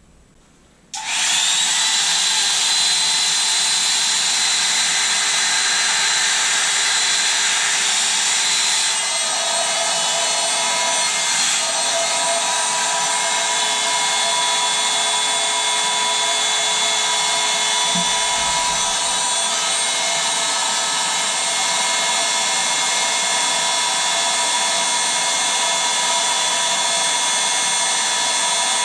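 Electric air pump switching on about a second in and running steadily with a whining motor tone, blowing up an inflatable; the tone shifts slightly about nine seconds in.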